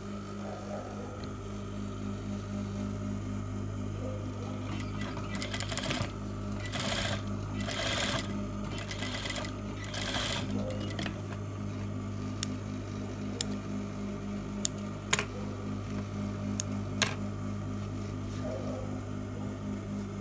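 Sewing machine running, its motor humming steadily under a fast stitching rhythm as it tacks a seam. Fabric rustles for several seconds in the middle, and a few sharp clicks follow.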